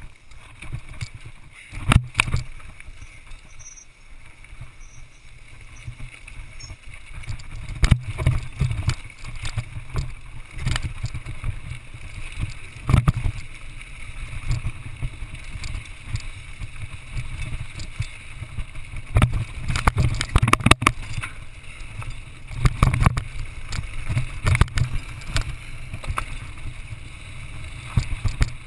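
Mountain bike rolling fast downhill over a rough dirt trail: a steady low rumble from the tyres with sharp knocks and rattles from the frame and parts whenever it hits bumps, loudest in short clusters.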